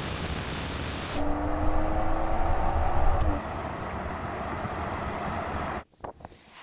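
Tuned BMW 3 Series accelerating hard in a drag race, a rising engine note standing out over steady road and wind noise from about one to three seconds in, then dropping away. The sound cuts off abruptly near the end.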